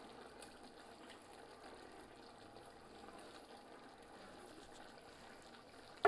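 Faint steady hiss and bubbling of chicken broth simmering in an aluminium pot, with a few soft plops as chopped tomatoes are pushed in off a plate. A sharp knock comes right at the very end.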